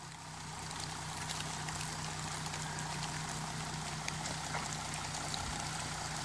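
Jeep Grand Cherokee CRD's V6 turbo-diesel running steadily at low revs while the vehicle crawls slowly over a dirt track, heard from a distance with a steady hiss over it.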